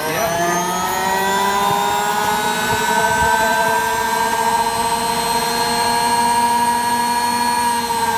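Brushed universal motor of an Amica AWI510LP washing machine, wired straight to mains (live through a brush into a field coil, out to neutral) with no speed control. It finishes spinning up, rising in pitch for about the first second, then runs steadily at maximum speed with a loud whine.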